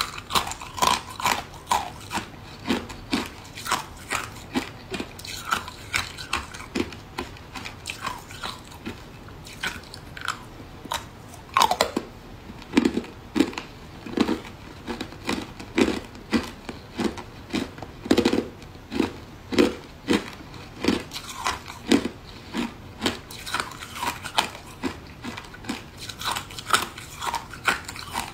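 Matcha-dusted ice being bitten and crunched between the teeth and chewed: a steady run of sharp crunches, about two a second.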